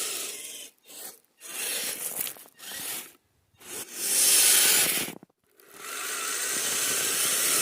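Tracked RC crawler driving through snow: its electric drivetrain and tracks grinding and rasping in bursts, stopping briefly several times as the throttle is let off, then running steadily over the last couple of seconds.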